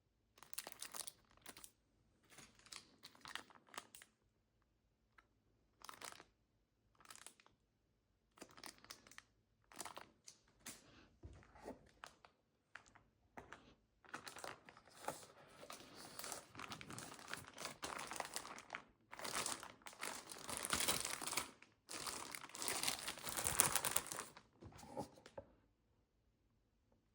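Packaging being unwrapped by hand, crinkling and rustling. It comes in short, scattered handfuls at first, then turns into denser, louder crinkling from about halfway, and stops a few seconds before the end.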